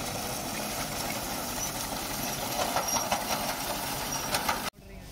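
Massey Ferguson tractor's diesel engine running steadily while its front-mounted reaper cuts standing wheat, with scattered light clicking from the machine. The sound cuts off abruptly near the end.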